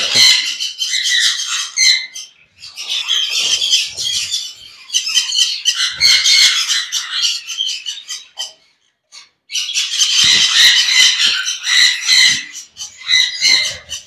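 Caged budgerigars and other small parrots chattering and squawking in dense stretches a couple of seconds long, with short pauses and a brief lull about nine seconds in.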